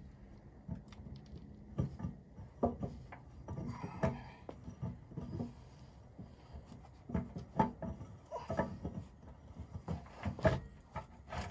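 Irregular metal clunks, knocks and scrapes as a heavy splined drive part is worked and wiggled into the chain case of a skid steer, getting its splines to line up.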